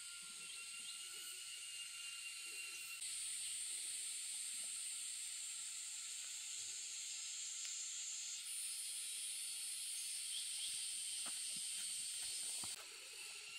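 A steady high-pitched hiss that jumps abruptly in level and pitch a few times, with a couple of faint knocks near the end.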